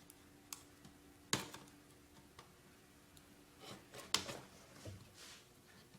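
Faint scattered clicks and light knocks of hands handling laptop parts on a bench, with a sharper click about a second in and a few more around four seconds in.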